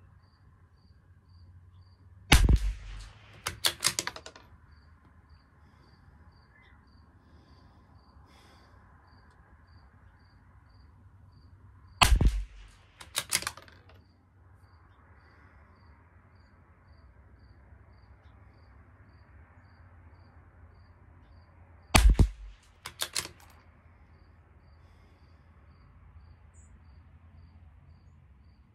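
Three .22 LR rimfire shots from a Tikka T1X bolt-action rifle, about ten seconds apart. Each is followed about a second later by a quick run of metallic clicks as the bolt is cycled to chamber the next round.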